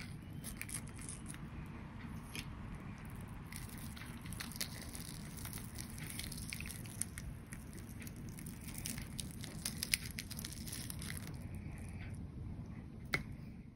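Crispy fried chicken crust crackling and crunching as pieces are pulled apart by hand: many small, sharp crackles over a low, steady background rumble.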